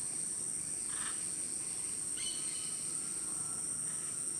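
Steady, high-pitched drone of rainforest insects, with a few faint bird chirps.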